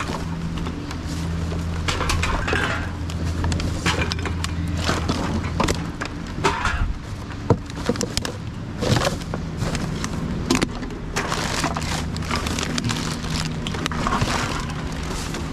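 Gloved hands rummaging through a wheelie bin of rubbish: plastic bags and wrappers crinkling and rustling, with scattered knocks and clatters of cans and packaging.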